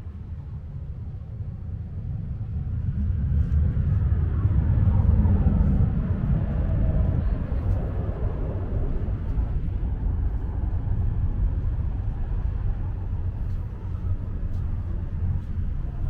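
A passing vehicle: a low rumble that swells to its loudest about five seconds in, its pitch falling as it goes by, then settles into a steady rumble.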